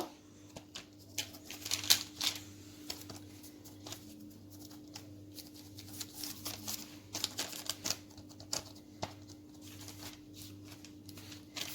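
Light kitchen handling noises: scattered soft taps, clicks and rustles of dough and utensils being handled, over a steady low electrical hum.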